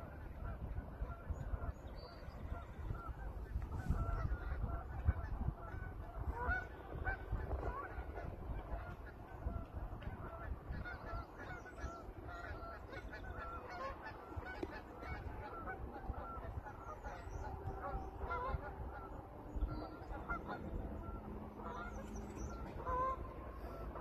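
A flock of geese on the water honking, many short calls overlapping throughout, with wind rumbling on the microphone.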